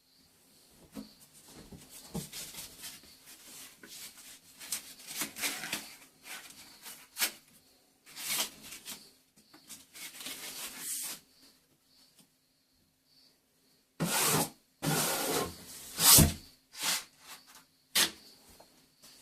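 Plastering knife scraping and spreading wet-area base coat compound into a plaster join: a string of irregular rubbing strokes, with a few louder, sharper scrapes near the end.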